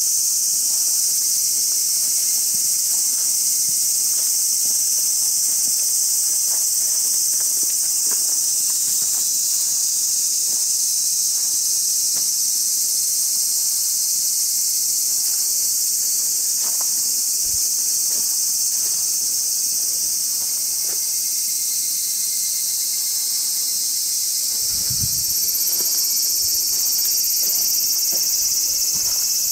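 Dense, steady, high-pitched chorus of summer insects without a break. A few faint ticks run underneath, and there is a low thud near the end.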